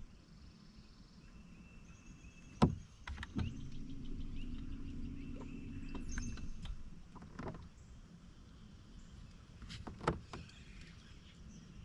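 Electric trolling motor on a bass boat running with a steady low hum for about three seconds, with sharp clicks and knocks of fishing gear and the boat before and after it.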